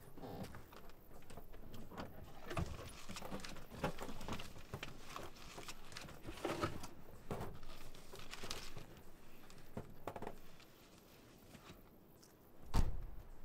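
Rummaging inside a car: papers rustling and small objects clicking as they are handled on the seat, with one loud thump near the end.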